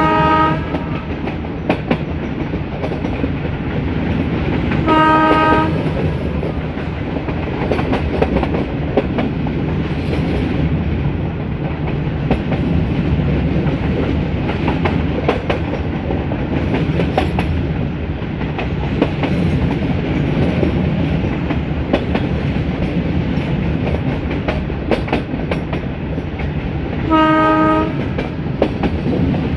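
A metre gauge train running, with wheels clicking over the rail joints under a steady rumble, while the YDM4 diesel locomotive's horn sounds in short blasts: one ending just after the start, one about five seconds in and one near the end.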